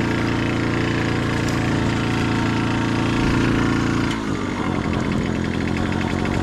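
Small 50 cc motorcycle engine running steadily, then dropping to a lower, uneven idle about four seconds in.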